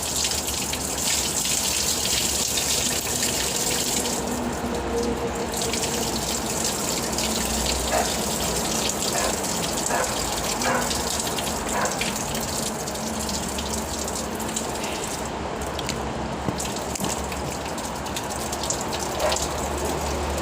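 Kitchen tap running steadily into a sink as pig lungs are rinsed under it.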